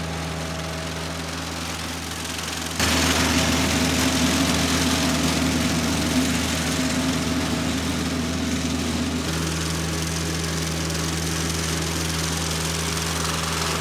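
John Deere 1025R subcompact tractor's three-cylinder diesel engine running steadily while driving a sickle bar mower through tall grass. It gets louder about three seconds in and holds steady after that.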